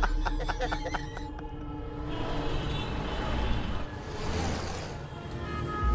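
Background music over street traffic noise, with rushing noise swelling and fading twice as vehicles pass.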